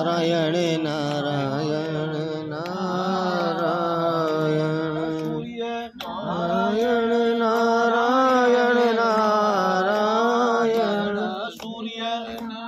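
Devotional mantra chanting: a voice sings two long, slowly gliding phrases with a brief break between them about halfway through, over a low steady drone during the first phrase.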